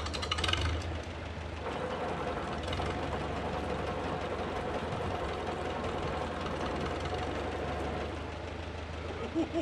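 Farmall Super A tractor engine running steadily, the tractor that powers an old homemade backhoe, with a short burst of higher-pitched noise about half a second in.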